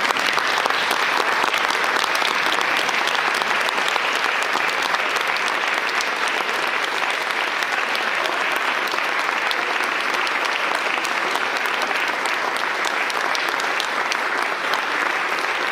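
An audience applauding: loud, steady clapping of many hands that holds without a break.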